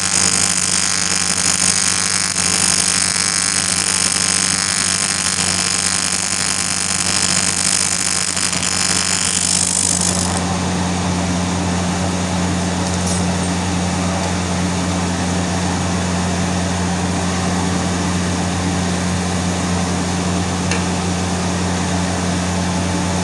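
Electric arc welding: a continuous hiss and crackle of the welding arc over a steady electrical hum, the high hiss easing about ten seconds in.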